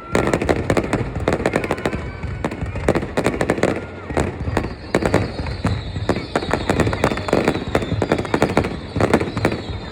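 Fireworks display: a rapid, irregular run of bangs and crackling bursts, with a faint whistle sliding slowly down in pitch from about halfway through.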